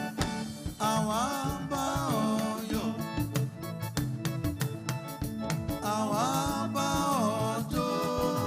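Church choir singing a gospel song over drums and instrumental accompaniment, with sung phrases rising and falling in pitch.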